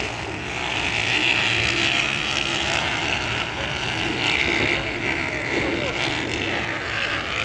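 Motocross bikes racing, their engines revving up and falling back as they pass, with voices mixed in.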